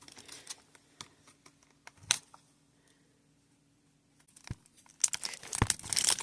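Toy packaging being handled and torn open: scattered crinkles and clicks, a short lull, then a dense stretch of crinkling and tearing from about five seconds in.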